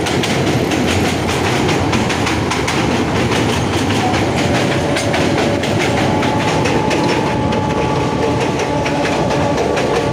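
Narrow-gauge toy train running along the track: a steady rumble of the coaches, with the wheels clacking rapidly over the rail joints. A faint steady whine joins in midway.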